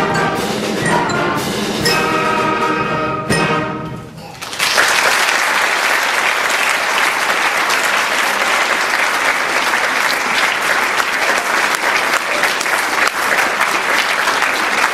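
An intermediate school concert band with brass plays the last bars of a piece and ends on a final chord about four seconds in. The audience then applauds steadily.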